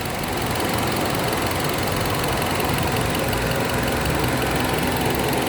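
Petrol car engine idling under AC load and running rough with a misfire, with a steady hiss of air. The mechanic blames the misfire on extra air being drawn in through the intake manifold.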